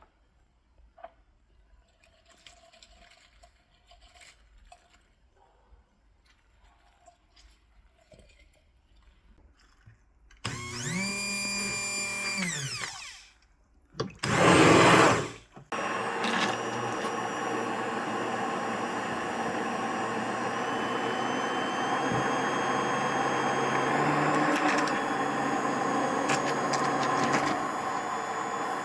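Hand blender motor, after a few faint kitchen clicks, spins up, holds and winds down for about two seconds, then gives a short louder burst, and from about halfway through runs steadily with its pitch shifting slightly as it blends.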